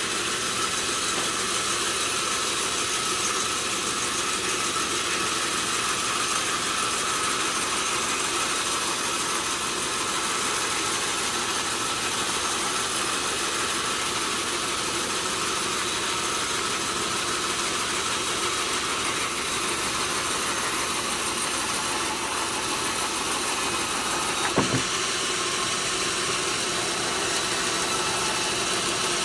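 Sawmill machinery running steadily, with a few steady tones over its noise. One sharp knock near the end.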